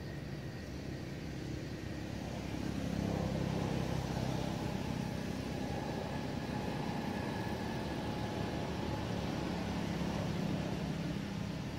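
Steady rumble of a motor vehicle engine, swelling a few seconds in and again near the end as traffic passes.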